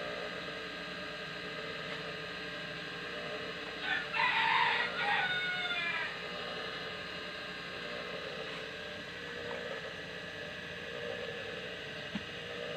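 A rooster crows once, about four seconds in, one call of about two seconds over a steady background hum.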